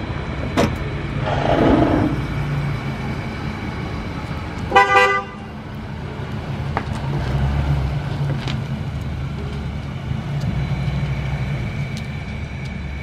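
Ford E-450 box van's engine running as the van pulls away, with one short toot of its horn about five seconds in.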